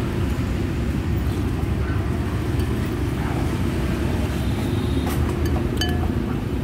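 Steady low rumble of road traffic, with a few light clinks of a metal spoon against a ceramic bowl about five to six seconds in.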